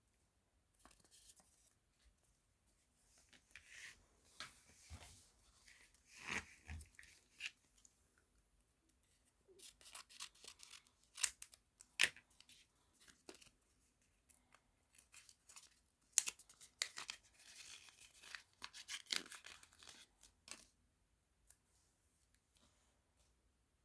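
Irregular crinkling and tearing noises with sharp clicks, coming in bouts with short pauses between them.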